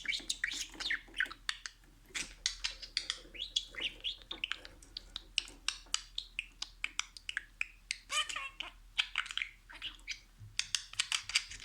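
Budgerigar chattering and warbling: a rapid, continuous run of high chirps, clicks and squeaky warbled notes.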